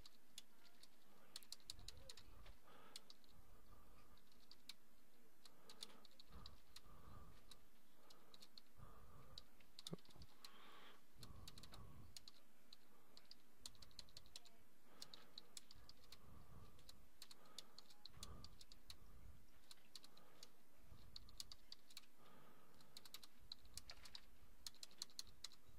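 Faint typing on a computer keyboard: keystrokes coming in short runs separated by brief pauses.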